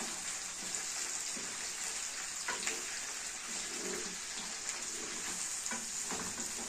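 Sausages sizzling in hot ghee and garlic in a frying pan. A wooden spatula stirs them, scraping and knocking against the pan now and then.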